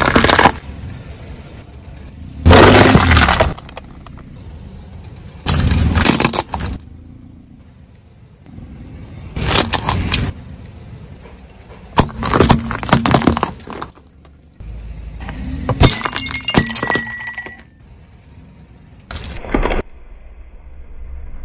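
Car tyre rolling over and crushing objects one after another: about seven short bursts of cracking, crunching and popping a few seconds apart, with a low steady rumble between them.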